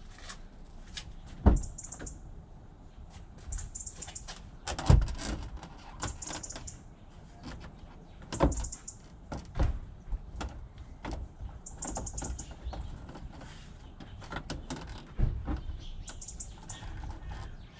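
Irregular knocks, clicks and rattles of the Volvo V70's retractable cargo cover and plastic boot trim being handled and worked loose. The loudest knocks come about a second and a half in and about five seconds in. Faint short bird chirps recur now and then.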